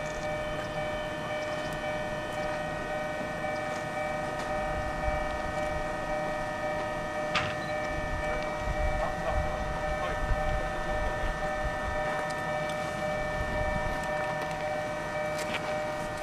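One of Kotoden's 1926-built retro electric railcars, heard as a steady whine of several tones over a low rumble, with a few faint clicks.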